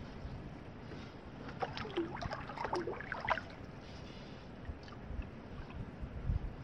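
Wooden canoe being paddled on calm water: splashing and gurgling of the paddle blade and its drips, clustered about two seconds in, over a steady low rumble.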